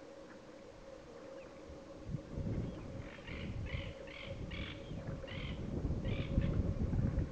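Giant river otters calling: a run of about seven short, high calls, roughly two a second, starting about three seconds in, over a low rumble.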